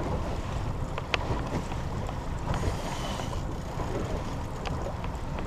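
Wind buffeting the microphone over the wash of water around a small boat, with a few sharp clicks.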